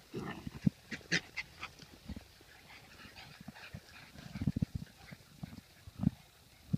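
English bulldog puppies making short, irregular breathy sounds and snuffles while they play, with scattered soft thumps and clicks.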